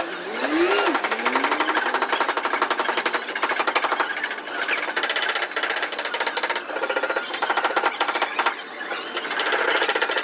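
Pneumatic hammer tool rattling: a fast, continuous run of strikes with a few short breaks, and a brief squeal that rises and falls about half a second in.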